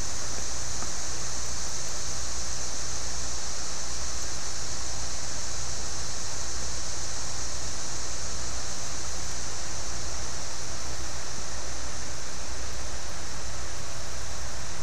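Steady, even hiss with a low hum underneath, unchanging throughout, with no distinct knocks or clicks standing out.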